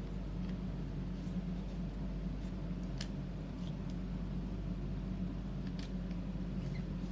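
A sheet of origami paper being folded and creased by hand: scattered light crackles and rustles as the paper is pressed flat. A steady low hum runs underneath.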